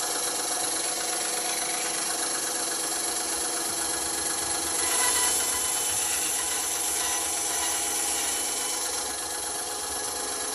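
Band saw running steadily with a light rattle, a little louder for a moment about halfway through.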